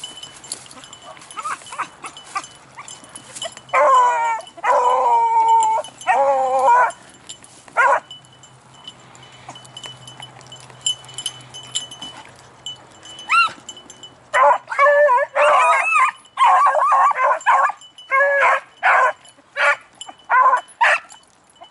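Beagles baying while working a scent trail: a few long, bending bays about four seconds in, then a quick string of short, choppy bays from about fifteen seconds on.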